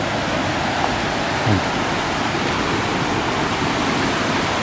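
Creek water rushing over rocks, a steady hiss of white water, with one short low falling sound about a second and a half in.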